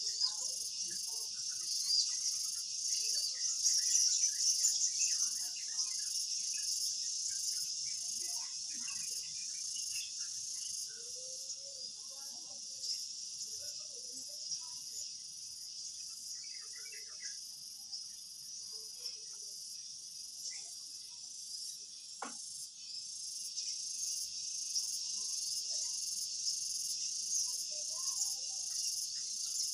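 Insects chirping in a steady, high-pitched chorus, with one sharp click about two-thirds of the way through.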